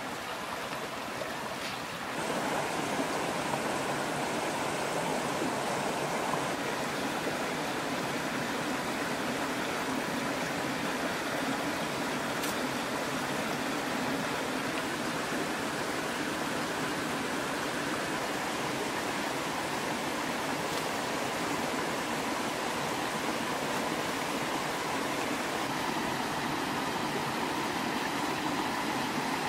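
Shallow river running over stones: a steady rushing of water, a little louder from about two seconds in.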